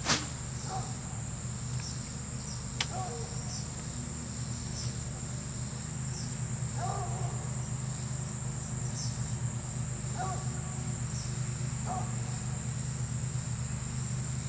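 Steady high-pitched chorus of summer insects such as crickets, with scattered short chirps over a low steady hum. Two sharp clicks stand out, one right at the start as the rod is cast and one about three seconds in.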